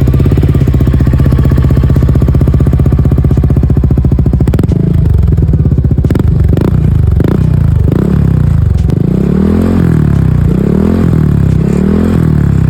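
Yamaha Aerox V2 scooter's 155 cc single-cylinder engine running through a Cardinals Racing aftermarket exhaust pipe: it idles steadily for about five seconds, then is revved again and again, each rev rising and falling. The exhaust note is full and fine, not very raspy.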